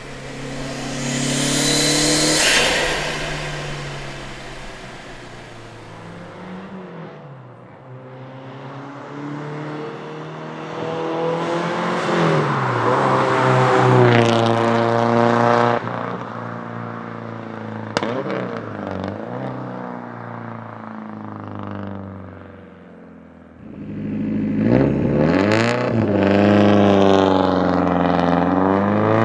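Lancia Delta HF Integrale Evoluzione's turbocharged 2.0-litre four-cylinder through a straight-pipe exhaust, accelerating hard through the gears. The engine note climbs and falls back at each gear change, with a few sharp cracks.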